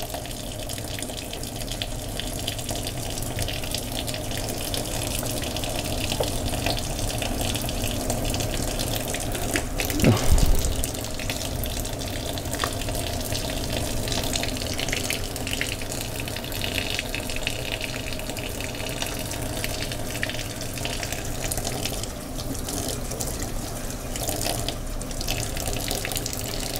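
Kitchen tap running steadily into a sink while ají gustoso peppers are rinsed under it, with a brief louder knock about ten seconds in.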